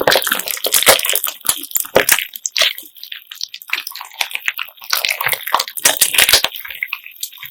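Homemade slime mixed with beads being kneaded and squeezed by hand: wet squishing with a dense run of clicks and clacks from the beads.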